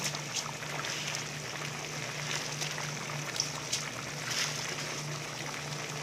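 Spiced water boiling in a cooking pot, a steady bubbling hiss with scattered pops and small splashes as handfuls of soaked rice are dropped in.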